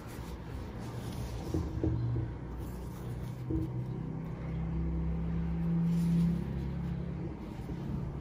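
A low droning hum, a few steady tones with a rumble underneath, growing louder to about six seconds in and then easing off.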